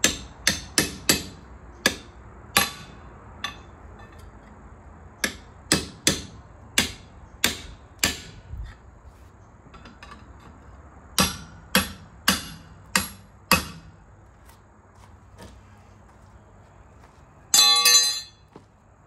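Hammer striking metal on a semi truck's wheel hub during a hub seal job: about eighteen sharp, ringing blows in three runs with pauses between. Near the end, a brief metallic clatter with ringing.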